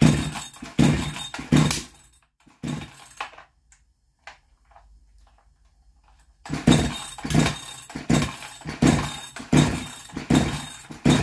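A Chinese 62cc chainsaw being pull-started over and over without catching. There are a few pulls, a short pause, then a quick regular run of about one pull every two-thirds of a second. The engine not starting is taken by the owner as a sign of a bad ignition coil or timing that is out.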